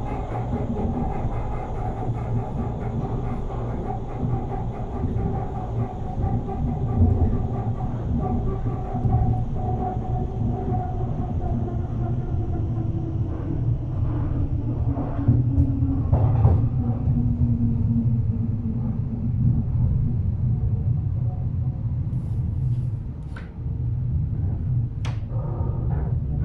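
Berlin S-Bahn class 485 electric train heard from inside the car, running and slowing to a stop: a steady rumble with a whine that slowly falls in pitch, then a few short squeaks near the end as it halts.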